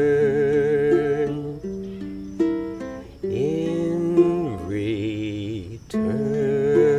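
Ukulele outro with a voice holding long wordless notes that waver with vibrato. A run of short stepped notes comes in the middle.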